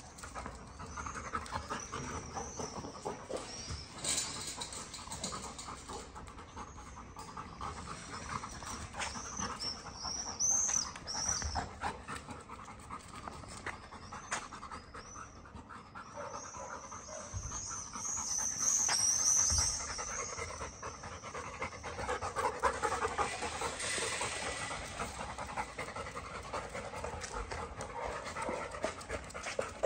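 Labrador retrievers panting hard and fast. High squeaky chirps come and go over the panting, loudest about two-thirds of the way through.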